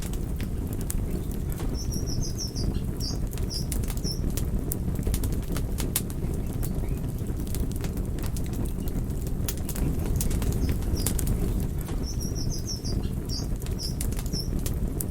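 Wood fire crackling, with a steady low roar and frequent sharp pops. A short phrase of high bird chirps comes about two seconds in and the same phrase again about twelve seconds in.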